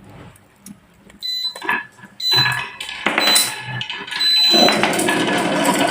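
Marbles clicking and rolling on a wooden double-slope marble run, starting with a few scattered clicks and building to a dense, steady rattle about four and a half seconds in. Several short, high ringing tones sound over the clatter.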